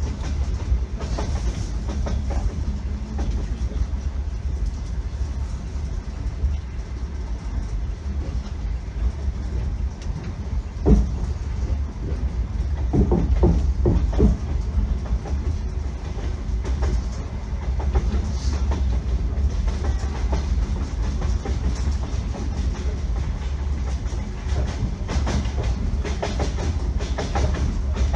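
Russian Railways passenger train running, heard from inside the carriage: a steady low rumble with the clickety-clack of the wheels over rail joints. A sharp knock comes about eleven seconds in, and a quick run of louder knocks a couple of seconds later.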